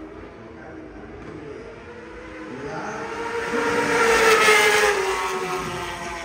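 1000cc superbike racing motorcycle passing at speed: its engine grows louder to a peak about four seconds in, then falls in pitch and fades as it moves away.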